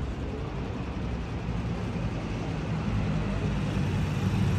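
Low, steady rumble of city traffic, growing louder over the last second or so.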